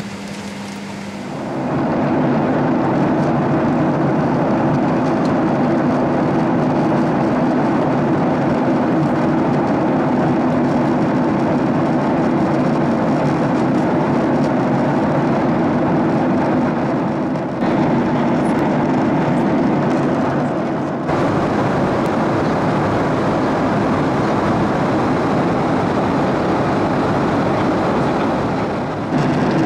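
Steady in-flight cabin noise of an airliner at cruise: a constant drone of engines and rushing air, with a low hum underneath. It swells in about a second and a half in.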